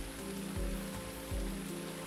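Background music of low held notes that change about every half second, over an even, steady hiss.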